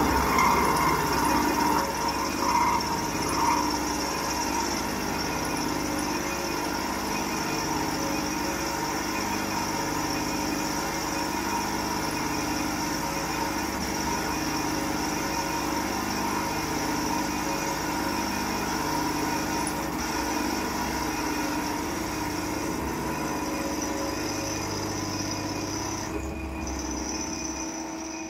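CK6432 CNC lathe's live-tool spindle running an end mill against a threaded steel tube: a steady machine whine with constant tones over a low, slowly pulsing hum. It is louder and rougher for the first few seconds.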